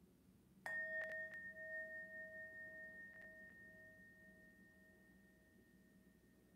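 A meditation bell struck once, about a second in, ringing with a low and a high tone that slowly fade over several seconds. It signals the end of the meditation sitting.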